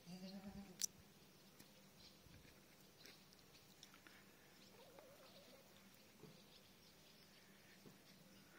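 A goat bleats once, briefly, followed by a single sharp click; the rest is faint and quiet.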